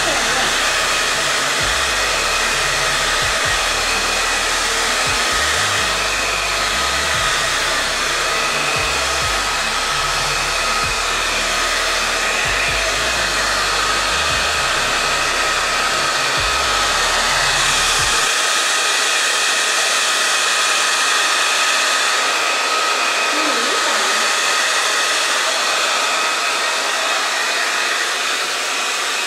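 Handheld hair dryer blowing steadily on a wet puppy's fur, a loud even rush of air with a high steady whine. A low rumble under it drops away about two-thirds of the way through.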